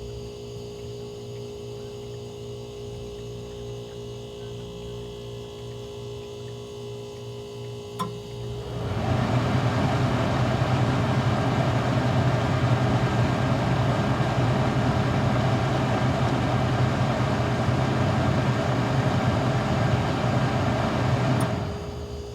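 Ice machine humming steadily and not fully on. About a third of the way in it gives a click and swells into a much louder, fuller running sound. Near the end it drops back to the quieter hum.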